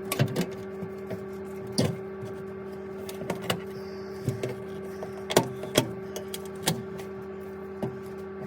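Vaillant Turbomax combi boiler running with the steady hum of its flue fan, with scattered sharp clicks and knocks of handling over it.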